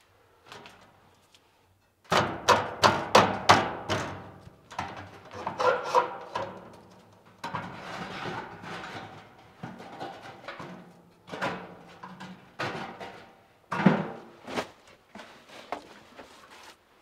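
Shovel chopping and scraping at a dugout's earth floor to level it: a quick run of thunks a couple of seconds in, then scattered scraping and knocks, with background music.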